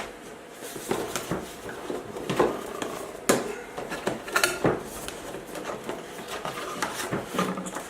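Unboxing noise: packaging and contents of a GoPro retail box handled by hand, a light rustling with several sharp clicks and knocks, the loudest about two and a half and three and a half seconds in.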